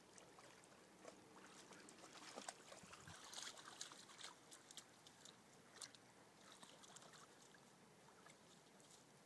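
Faint sloshing and small splashes of pond water as a whitetail buck moves in it, busiest from about two to six seconds in.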